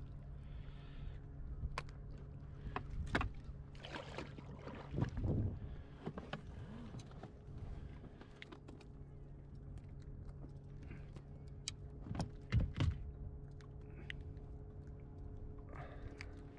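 Small outboard motor running with a steady low hum, with irregular knocks, clicks and rustles as mackerel are lifted aboard on a feather rig and unhooked in an inflatable dinghy.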